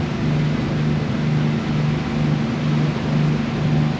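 Passenger ferry's engines droning with a low, even throb about twice a second, over a steady rushing hiss.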